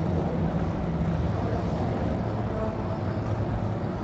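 Steady low hum over an even background hiss.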